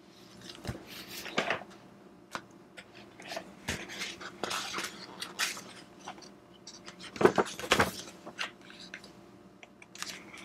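Irregular soft rustles and light clicks of a picture book being handled and its pages turned, loudest as two rustles a little past the middle.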